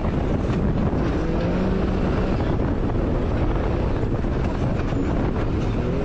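Vehicle engine running hard at speed over rough ground, its pitch rising and falling with the revs, under heavy wind noise on the microphone.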